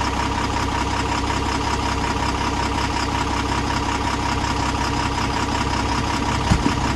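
An engine runs steadily at idle, with a constant hum and an even mechanical drone. A few light knocks come near the end.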